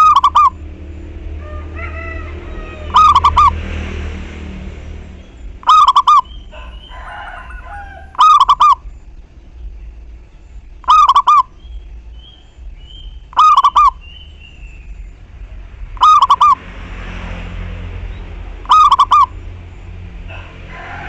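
Zebra dove cooing: a short, loud, stuttering coo phrase repeated about every two and a half seconds, eight times, with fainter chirps between the phrases.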